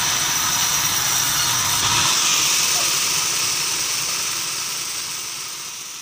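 Large sawmill bandsaw running, a steady high hiss with a thin whine, fading away over the last couple of seconds.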